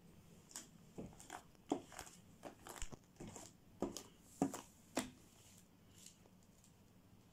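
Blue shaving-foam fluffy slime being squished and stretched by hand, giving a string of small sticky pops and crackles through the first five seconds or so, then going quiet.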